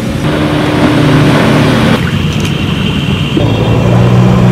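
Motorboat outboard engine running steadily under way. Its note changes abruptly twice, about two and three and a half seconds in.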